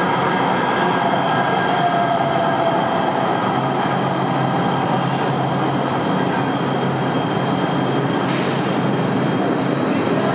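LA Metro light rail train running, a steady sound of wheels and motors with faint wheel squeal that glides slightly in pitch. A short hiss comes about eight seconds in.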